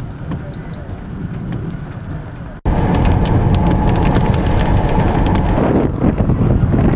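Storm wind and rain noise. A low, steady rumble cuts off abruptly about two and a half seconds in. Much louder wind then buffets the microphone, with rain crackling over it.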